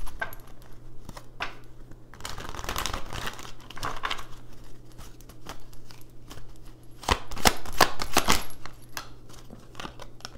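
Oracle cards being shuffled and handled: papery rustling and scattered card snaps, loudest in a quick run of sharp snaps about seven to eight seconds in.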